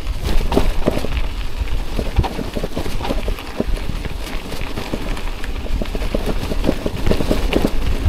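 Bicycle rolling down a rocky dirt track, its tyres crunching over stones and the bike rattling with many irregular knocks over a constant low rumble.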